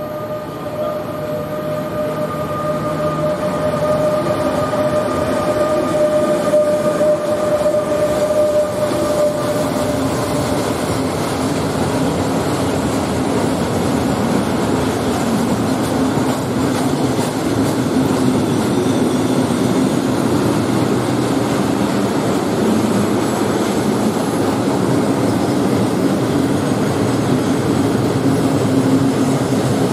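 Bombardier Traxx electric locomotive hauling a freight train of open coal wagons past at speed. It grows louder as it approaches, with a steady high tone over the first ten seconds or so. Then the long string of wagons rolls by with a continuous heavy rumble and clatter of wheels on the rail joints.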